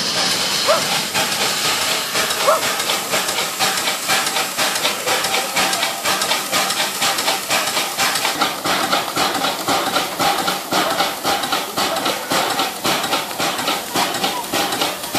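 Steam locomotive pulling slowly into a station: a steady loud hiss of escaping steam, with a run of quick, regular knocks from the engine and its wheels that grows denser about halfway through as it passes close by.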